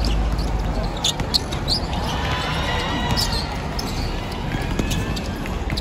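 A basketball bouncing on a hard court floor during play, with voices in the background.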